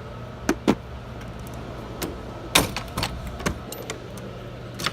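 Scattered metal knocks and clinks, about six in all, from the drawers of a steel roll-away tool box being shut and opened and the tools inside shifting. The loudest knock comes a little past halfway. A steady low hum runs underneath.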